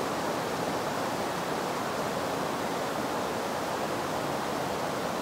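Steady rush of whitewater pouring over a low rock ledge rapid on a creek.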